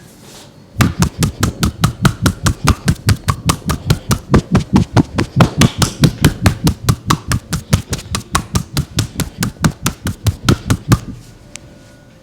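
Rapid, even percussive massage strikes on a person's back, about five a second, starting about a second in and stopping near the end.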